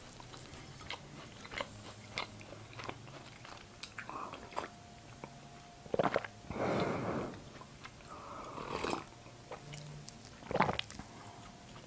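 Close-miked chewing of white halva with cashews, with small mouth clicks throughout. About six seconds in there is a sip of tea from a mug, and a knock comes near the end.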